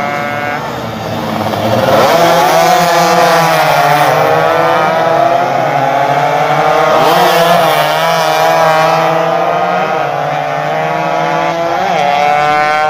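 Two-stroke 115 cc road-racing motorcycles running at high revs through a corner. Several engines overlap, their pitch falling and rising as the riders slow and change gear. Near the end one engine's pitch climbs steadily as it accelerates away.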